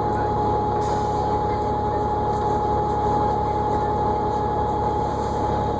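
New Flyer D40LFR diesel transit bus running, heard from inside the cabin: a steady engine and road rumble with a constant high-pitched whine over it.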